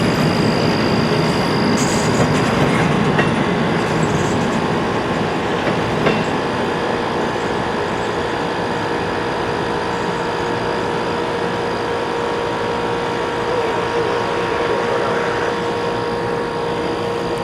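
Double-stack intermodal freight cars rolling past: a steady rumble of wheels on rail, with thin steady squealing tones over it, easing slightly in level.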